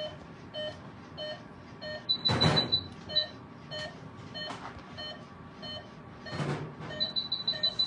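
Veterinary patient monitor beeping steadily, about three short beeps every two seconds, in time with the pulse it is monitoring. A quick run of higher beeps comes twice, and two brief noises are heard about two and six seconds in.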